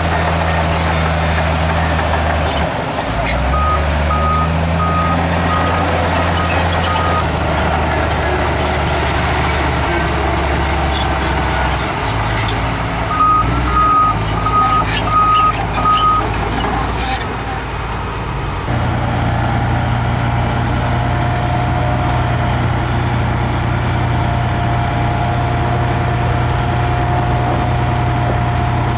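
Heavy diesel earthmoving machines (bulldozer and dump truck) running, their engine note stepping up and down. A reversing alarm beeps in two runs of about five beeps, one a few seconds in and one around the middle, over scattered clanking knocks. About two-thirds through, the sound changes abruptly to a steadier engine drone.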